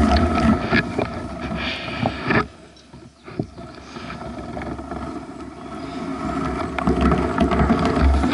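Giant Talon hardtail mountain bike riding over a grassy trail: wind buffeting the microphone, low tyre rumble, rattles and clicks from the bike, and grass brushing past. About two and a half seconds in it drops away for a second, then builds back up.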